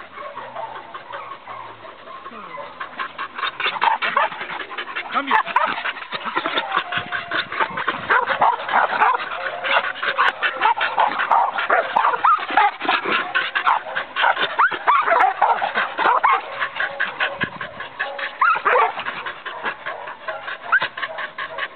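Dog barking over and over in quick succession.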